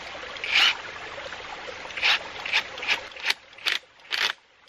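Heated 1.25-inch black poly pipe scraping and squeaking as it is twisted and forced onto a barb fitting: about seven short rasps at uneven intervals, the later ones coming closer together.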